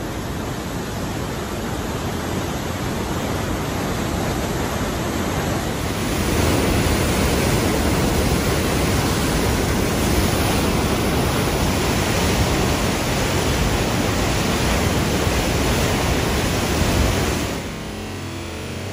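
Water discharging from a dam's outlet tunnel into a concrete spillway channel as churning whitewater: a loud, steady rush. It grows louder about six seconds in and drops off abruptly near the end.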